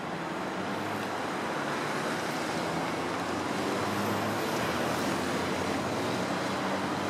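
Rubber-tyred Paris Métro train running across an elevated steel viaduct: a steady rushing rumble that grows slowly louder over the first few seconds, mixed with city road traffic.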